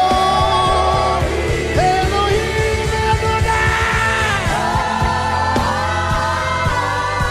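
Live worship music: a band with steady drums and held chords, with voices singing long, gliding notes.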